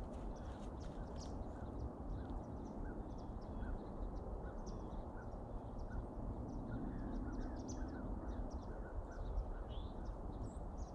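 Outdoor ambience: scattered short bird calls over a steady low background noise.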